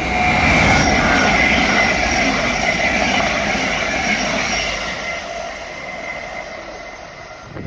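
Great Northern electric multiple unit passing through at speed: steady rumble of wheels on rail with a high whine. It is loudest about a second in, then fades as the train runs away.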